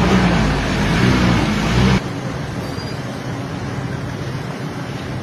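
Road traffic noise with vehicles running. It is loud with a low rumble at first, then cuts abruptly about two seconds in to a quieter, steady traffic hum.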